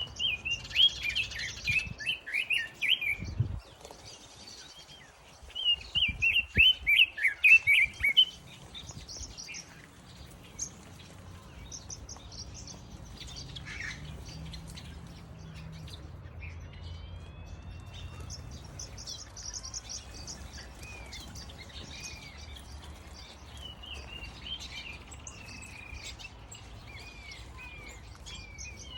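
Several small aviary birds, finches and softbills, chirping and singing. Two loud runs of quick chirps come in the first eight seconds, followed by quieter scattered chirps and a few whistled calls that slide up and down.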